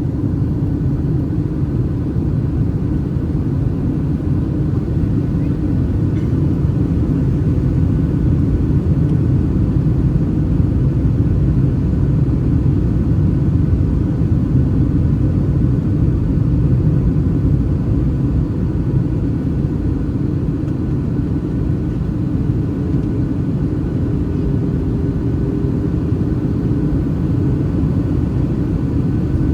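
Steady cabin noise of a Boeing 737-800 in flight, heard from a seat over the wing: a dense low rumble of engine and airflow with a faint steady hum of tones above it. The rumble swells a little midway.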